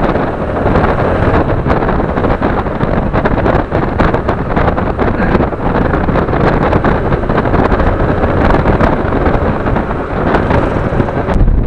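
Wind rushing and buffeting on the microphone of a camera on a moving motorcycle, with the bike's engine and road noise underneath.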